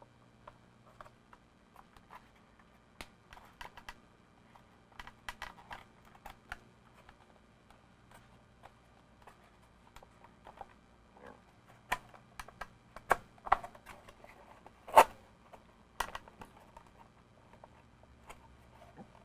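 Small clicks, taps and knocks from handling a Realistic TRC-200 walkie-talkie's plastic case and internal parts during disassembly, at irregular spacing. They come thicker and louder in the second half, with the sharpest knock about fifteen seconds in. A faint low hum runs underneath.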